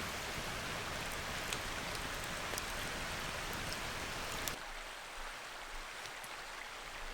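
Campfire giving a steady hiss with a few faint crackles; about four and a half seconds in it drops to a quieter hiss.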